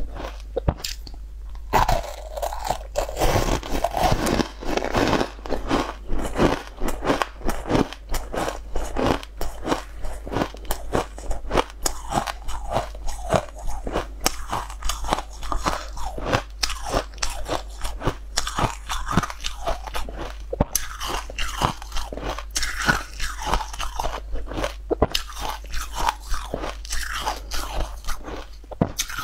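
Close-miked crunching and chewing of frozen green sweet ice balls, with sharp, rapid crunches several times a second as the ice is bitten and crushed between the teeth.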